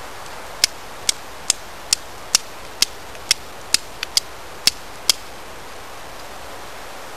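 Carbon-steel Opinel No. 8 knife struck against a flint to throw sparks, flint-and-steel style: about a dozen sharp, ringing clicks at roughly two a second, stopping about five seconds in.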